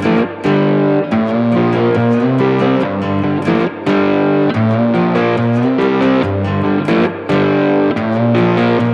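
Background music: a guitar-led instrumental track with a steady beat.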